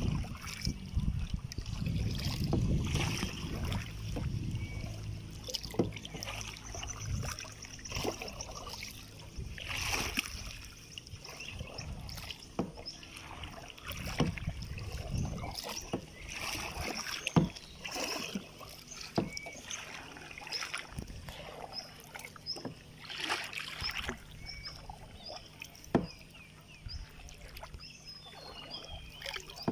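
Kayak paddle dipping into river water, stroke after stroke about every second or two, with splashing and water dripping off the blades.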